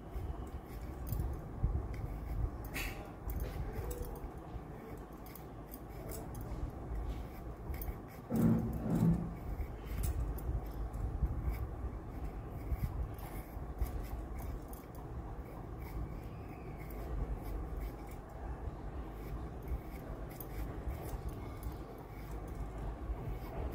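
Knife peeling a raw potato by hand: a run of short scraping strokes of the blade against the skin, with a brief low hum about eight seconds in.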